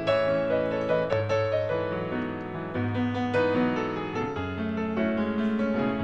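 Background piano music, with new notes struck about once a second over held low notes.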